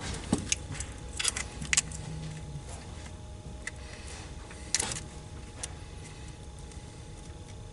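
Scattered sharp metallic clicks and clinks of a bolt and hand tools being handled while a bolt is started into a transmission, over a steady low hum.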